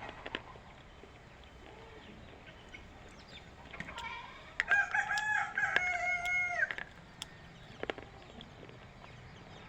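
A rooster crowing once, a single call of about two seconds, loudest about halfway through, with a few sharp clicks before and after it.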